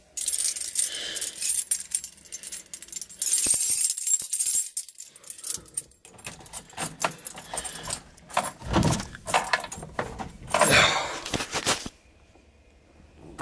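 A bunch of car keys jangling and clicking as they are handled and put into the ignition, with irregular rattles and knocks from movement in the seat.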